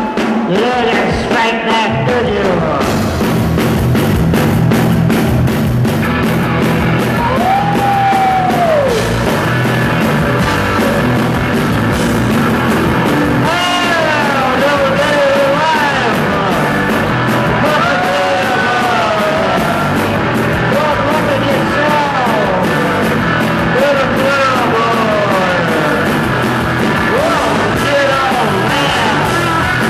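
Rock band playing live: electric guitar, bass guitar, drum kit and keyboard, with a lead vocal over them.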